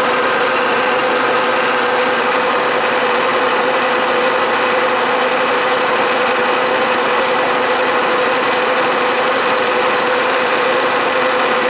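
Milling machine running with a fly cutter taking a light cut across a cast aluminium workpiece: a steady machine hum with one strong steady tone.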